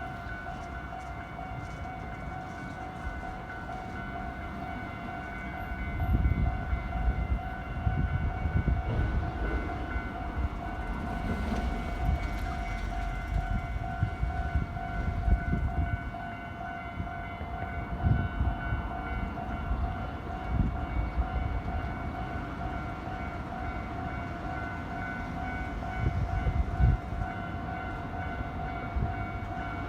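Japanese level crossing warning bell ringing steadily as a train rumbles over the crossing, its wheels thumping on the rails from about six seconds in.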